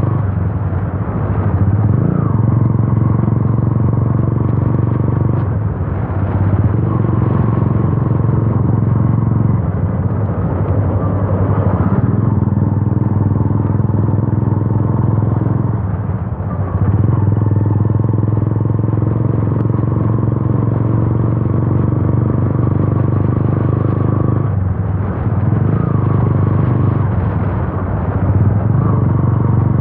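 Yamaha FZ V2's single-cylinder engine running loud through an Akrapovic exhaust with the dB killer removed, while the bike is ridden. The engine note eases off and picks up again several times.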